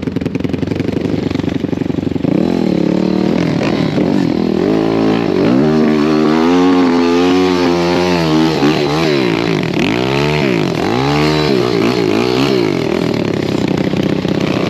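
A 190cc pit bike's single-cylinder four-stroke engine, ridden over rough, sandy ground, revving up and down over and over. The longest climb in pitch comes about halfway through, followed by several quick rev swells near the end.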